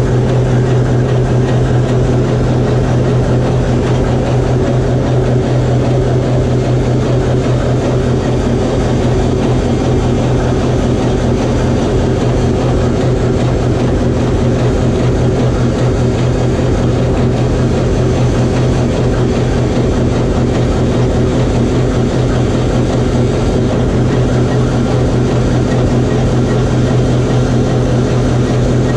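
TEM2UM diesel shunting locomotive's PD1M diesel engine running steadily during a post-repair load test. It makes a loud, even drone with a constant low hum, heard from inside the radiator and cooling-fan chamber.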